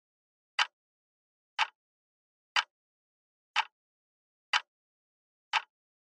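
Clock ticking sound effect: six short, sharp ticks, one each second, with silence between.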